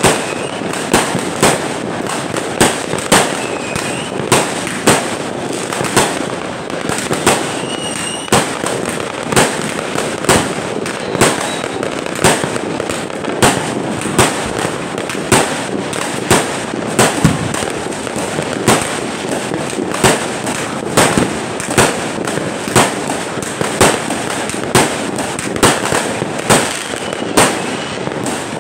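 Aerial fireworks going off in a long series, a loud bang roughly every second, over a constant dense background of noise, with a few faint whistles.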